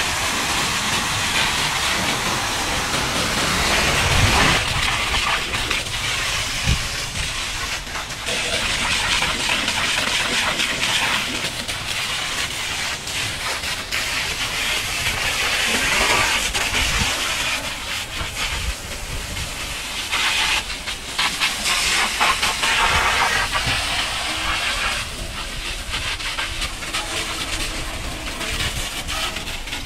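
Pressure washer jet hissing as it blasts water against a heavy truck's tyres, wheels and underbody, with water spattering onto the wet ground. The hiss swells and fades as the jet sweeps across different surfaces.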